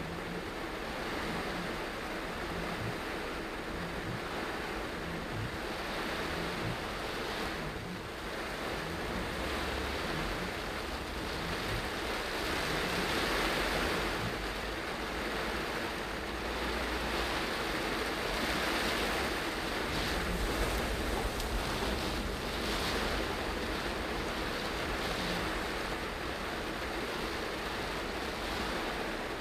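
Heavy rain on a moving car and its tyres on the wet road, heard from inside the car as a steady rushing hiss that swells slightly now and then.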